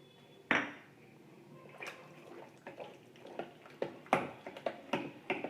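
Thick wet sweet corn adai batter being mixed by hand in a bowl as a little water is worked in: irregular wet squelches and slaps.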